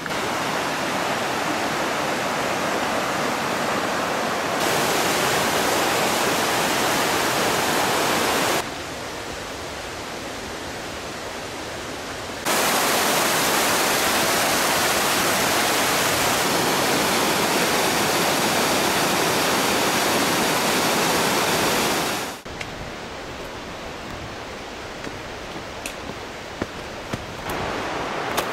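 Steady rush of a whitewater river, a broad hiss that jumps up and down in level at several abrupt cuts and is loudest for about ten seconds in the middle. Near the end it drops to a quieter outdoor hiss with a few faint clicks.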